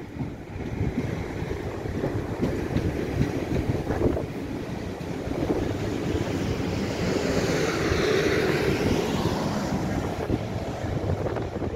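Class 450 Desiro electric multiple unit passing along the platform. The rushing noise of wheels and air swells to its loudest about eight seconds in, then begins to ease as the train draws away.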